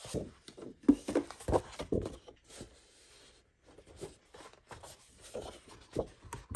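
Sheets of patterned craft paper and their packaging being handled and turned over: irregular rustles and light taps, with a short lull about three seconds in.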